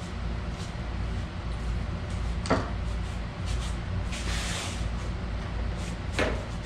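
Hands working on the ATV's plastic panels and wiring: two sharp clicks or snaps, one about two and a half seconds in and one near the end, and a brief scraping rustle around four seconds in, over a steady low hum.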